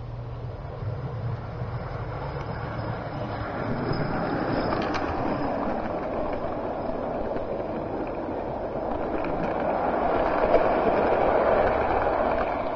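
An electric O gauge model train, a locomotive hauling a rake of coaches, running over the garden railway's track and points. The sound of the wheels on the track grows steadily louder as the coaches pass close and is loudest near the end.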